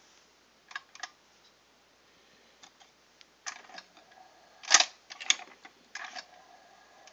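Scattered mechanical clicks and clacks from a Dual 1019 turntable as its controls and tonearm mechanism are worked by hand for manual play. The loudest is a sharp clack about two-thirds through, and a faint steady hum sets in about halfway.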